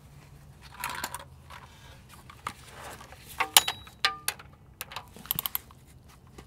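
Scattered metal clinks and clicks, a few with a short ring, from a ratchet wrench and socket being handled and fitted onto a 13 mm bolt of the oil filter adapter.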